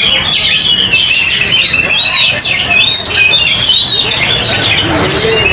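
Several oriental magpie-robins (kacer) singing at once: a dense, loud tangle of overlapping whistles and quick chirps.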